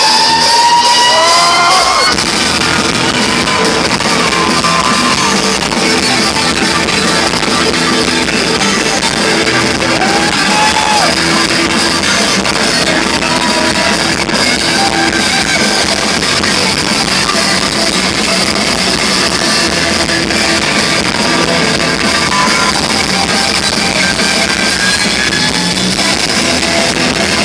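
Rock band playing live in a club, an instrumental passage between sung lines led by electric guitars over the full band, loud and dense throughout.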